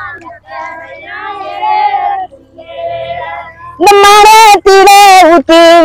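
Women singing a Tamil kummi folk work song in long held, wavering notes, fainter at first, then a much louder voice close by from about four seconds in.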